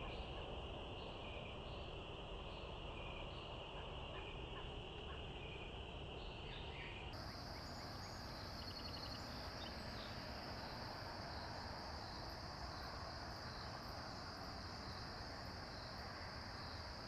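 Evening insect chorus of crickets trilling steadily, with a fainter chirp repeating about once a second over it. About seven seconds in the chorus cuts to a different, higher-pitched steady trill, over a low background hiss.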